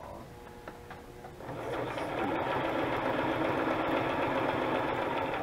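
Electric sewing machine, run from a foot pedal, stitching around a paper tag pocket with lace on it. It starts about a second and a half in and runs at a steady speed.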